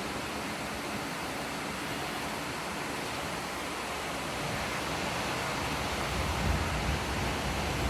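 Steady hiss of heavy rain falling during a thunderstorm, with a low rumble building near the end.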